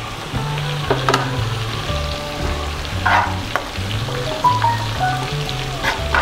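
Sliced onions and green chillies sizzling as they fry in hot oil in a pan, stirred with a steel spoon that scrapes and clicks against the pan several times. Background music with low held notes plays underneath.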